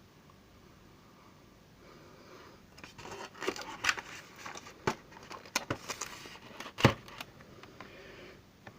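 A run of irregular clicks and rustling, as of small objects being handled. The loudest knock comes near the end.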